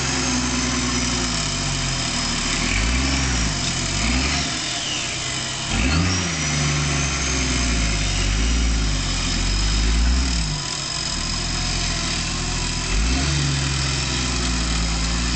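Nissan Patrol 4WD's engine running under load while its electric winch hauls the vehicle up a steep dirt slope, the revs rising and falling several times.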